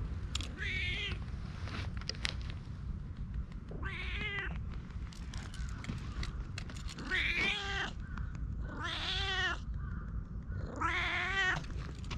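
Domestic cat meowing five times, each call under a second long, with a few faint clicks between the calls.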